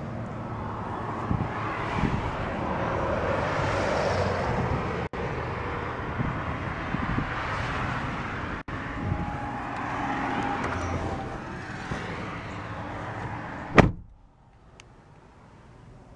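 Road traffic passing outdoors, a steady noise that swells and fades, then the Mitsubishi Lancer Sportback's door shuts with one loud thunk about 14 seconds in, after which the sound goes much quieter, heard from inside the closed cabin.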